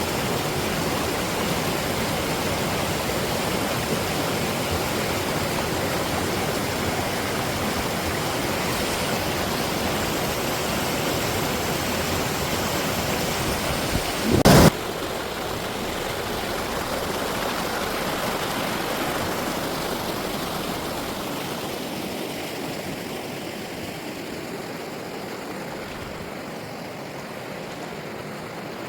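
Valley stream water running in a steady rush. A short loud burst comes about halfway through, and the water sound fades gradually near the end.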